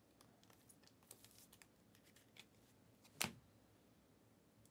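Faint clicks and rustling of trading cards being handled and flipped through a stack, with one sharper snap of a card a little past three seconds in.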